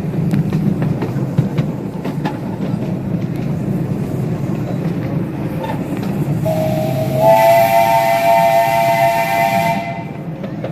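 A live steam locomotive's chime whistle sounds one long blast of about three and a half seconds. It is a chord of three tones with steam hiss, rising slightly just after it starts and then cutting off. Under it runs the steady rumble and clicking of the train rolling along the track.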